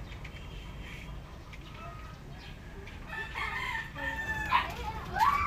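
A rooster crowing, starting about three seconds in.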